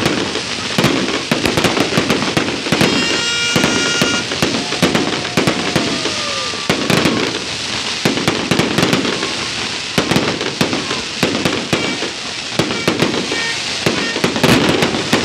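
Fireworks display: a rapid, continuous run of crackles and bangs from aerial bursts and spark fountains. A brief steady high tone sounds about three seconds in.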